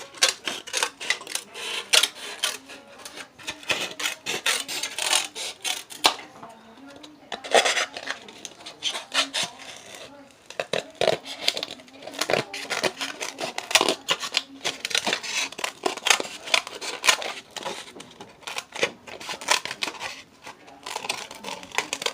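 Scissors cutting through a hard plastic bowl: a long irregular run of sharp cracks and snaps of the plastic, with a brief lull about six seconds in.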